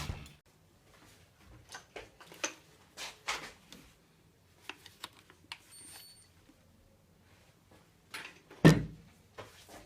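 Scattered light clicks and taps of objects being handled, with one louder thump near the end.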